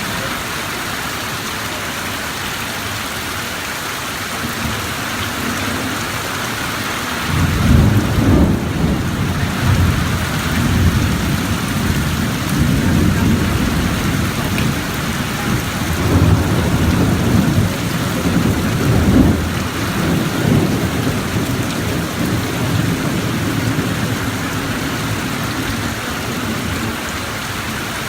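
Steady rain falling, with a long roll of thunder that begins about a quarter of the way in and rumbles for over ten seconds, swelling several times before fading.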